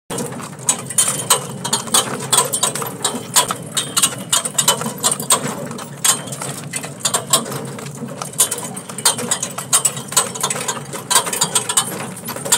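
Horse-drawn cart rattling and clattering over a rough gravel road: a fast, irregular run of clicks and knocks from the cart and its harness.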